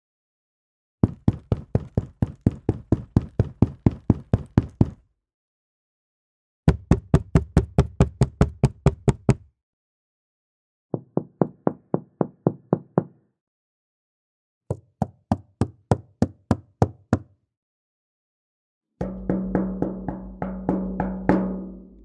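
Knuckles rapping on various hard objects in five separate runs of quick knocks, about four or five a second, with short silences between runs. The last run rings on with a deeper, humming resonance.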